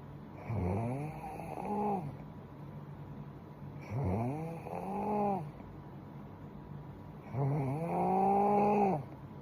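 A young woman snoring in her sleep: three pitched snores about three and a half seconds apart, each rising in pitch and then holding.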